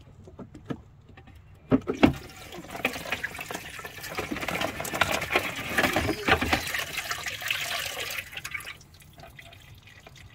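Screen washer fluid gushing out of the washer bottle's pump opening into a plastic bowl. A couple of sharp knocks about two seconds in, then about six seconds of splashing that dies away.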